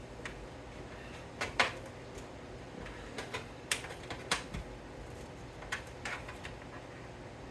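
Scattered sharp clicks and taps, about a dozen, the loudest about one and a half seconds in: hands handling cables, connectors and parts inside a PC case during assembly.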